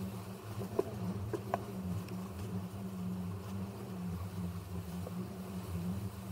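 Steady low buzzing hum picked up by a 360 camera riding on a kitesurfer as he skims across the water, with a few faint ticks about a second in.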